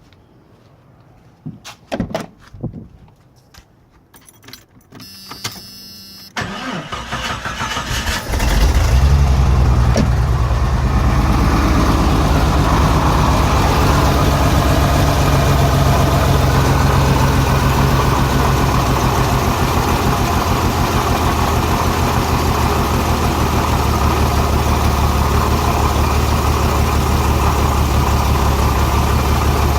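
A few knocks, then the starter cranks the Renix Jeep Cherokee's 4.0-litre straight-six about six seconds in. It catches about two seconds later and settles into a steady, rough idle, with cylinder 6 misfiring because its exhaust valve rocker is not moving as much as the others.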